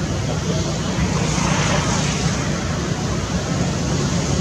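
Steady low engine drone under a rushing hiss, rising and falling a little in loudness without stopping.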